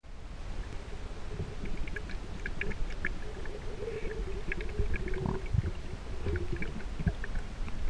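Water heard underwater, muffled, with low rumbling and gurgling and scattered small clicks and ticks.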